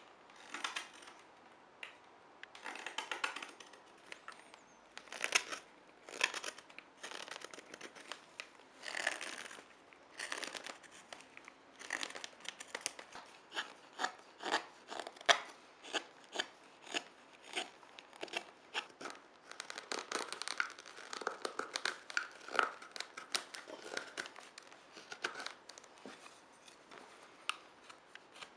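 Carving knife slicing shavings from an ash spoon blank: a run of short cutting strokes, spaced out at first, then coming about once or twice a second.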